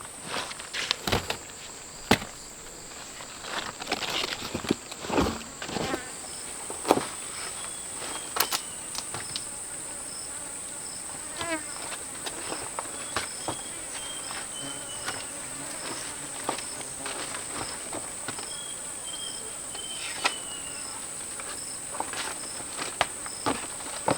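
Steady high-pitched drone of insects such as crickets or cicadas, with scattered knocks, rustles and footsteps, most of them in the first seven seconds, the loudest knock about two seconds in. Three faint descending series of chirps come in the second half.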